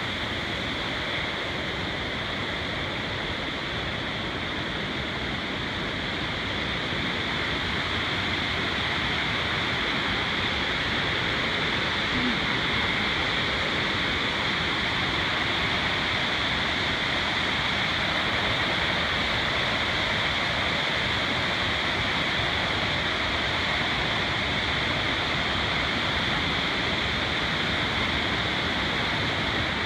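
Creek water cascading over rocks, a steady rushing sound that grows a little louder after about eight seconds.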